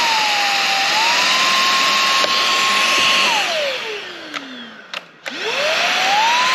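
Inse S610 cordless stick vacuum's motor running with a steady high whine that dips and recovers about a second in. About three seconds in it is switched off and winds down, falling in pitch, with a few clicks. It then spins back up, rising in pitch, near the end.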